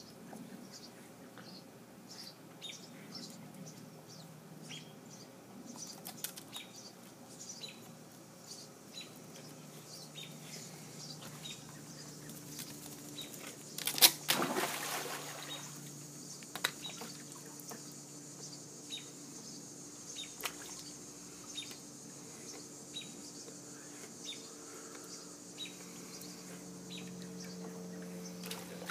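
A dog jumping into a swimming pool: one loud splash about halfway through, then a second or so of churning water. Short high chirps repeat throughout.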